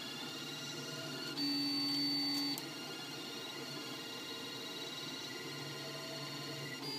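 Solidoodle 3D printer running a print, its stepper motors giving off steady whining tones, with one louder, higher move lasting about a second just over a second in.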